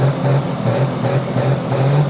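Hot farm class pulling tractor's diesel engine running steadily at the starting line, held back before the green flag drops.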